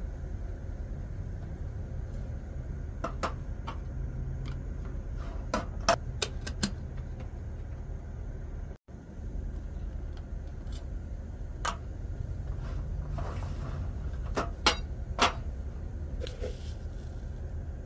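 Scattered sharp metal clinks of a spoon against a tin canister and a stainless steel kettle and its lid, the loudest about six seconds in and again around fifteen seconds, over a steady low rumble.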